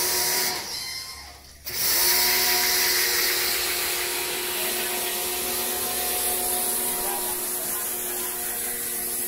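Electric pressure washer running, its jet hissing as it sprays water onto air-conditioner coils, with the steady whine of its pump motor underneath. The spray stops for about a second shortly after the start, then comes back on and runs steadily.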